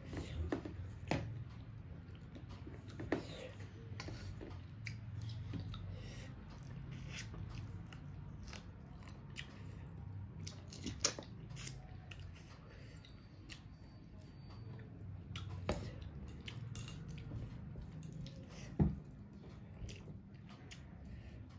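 Close-up chewing and mouth sounds of a person eating rice and chicken curry by hand, with scattered sharp clicks as fingers and food knock against a steel plate.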